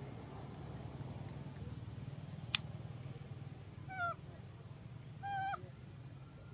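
One sharp click, then two short high-pitched calls from a young macaque: the first brief, the second longer, held and then dropping in pitch.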